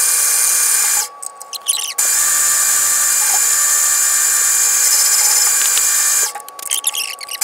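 Grizzly G0602 metal lathe running with a steady whine and bright hiss. The sound stops abruptly twice, and a few light metallic clicks fill each break.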